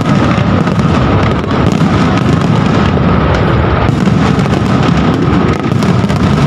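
Aerial fireworks display at full barrage: loud, rapid, overlapping bangs and crackles from many shells bursting at once, running on without a gap.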